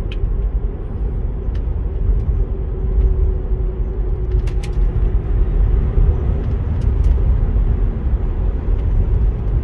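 Tesla Model 3 cabin noise while accelerating on the road: a steady low rumble of tyre and road noise with a faint steady hum, getting a little louder as the car speeds up from about 40 to 56 mph.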